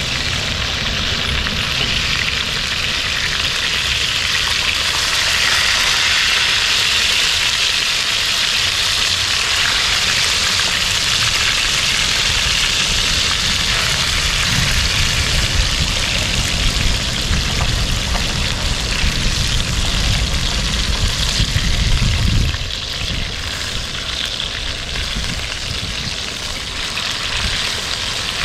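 Fish sizzling steadily as it fries in hot oil in a pan, with an occasional scrape of a spatula or tongs. A low rumble underneath drops away about three quarters of the way through.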